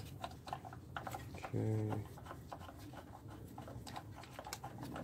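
Hand ratchet clicking in short uneven runs as a motor-mount bracket bolt is turned out by hand, with a short low hum about a second and a half in.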